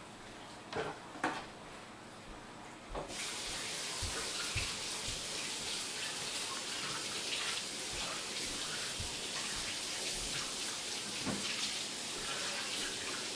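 Kitchen tap turned on about three seconds in and running steadily, an even rushing hiss, after a few sharp clicks and with occasional low knocks under the running water.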